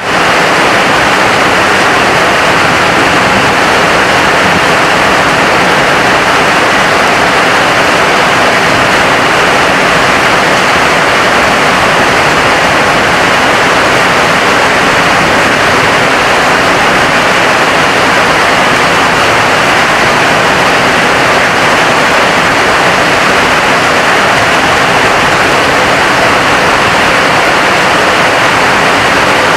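Heavy rain falling steadily: a loud, even rush of sound with no let-up.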